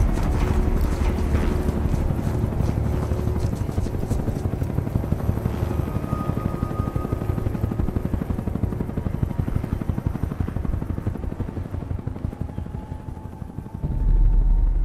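Helicopter rotors chopping in a fast, steady pulse over a low rumble, with a sudden deep low swell near the end.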